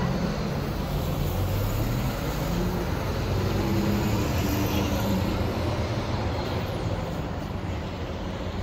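City street traffic: a motor vehicle's engine passes, its sound swelling a few seconds in and then easing off over a steady traffic background.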